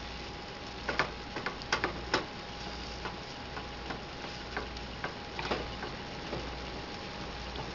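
Plastic spatula clicking and scraping against a skillet as ground venison is stirred and broken up, in irregular taps that come thickest about a second in, over a steady hiss.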